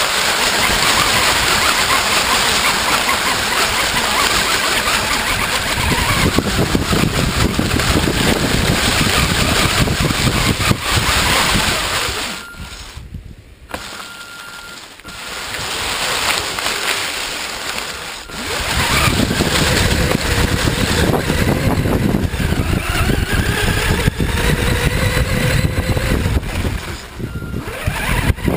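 1/10-scale FTX Enrage RC car driving through deep dry leaves and then grass, heard from a camera on the car: a loud, constant rustle and crackle of leaves against the car. It drops off for several seconds about twelve seconds in, and later a whine from the car's drive rises and falls in pitch.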